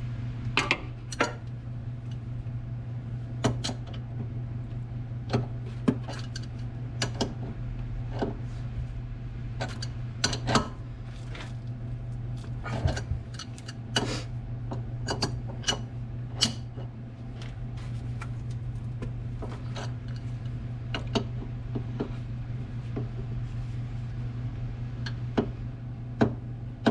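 Wrenches and metal tools clinking and clanking against hose fittings, in irregular knocks every second or so, over a steady low hum.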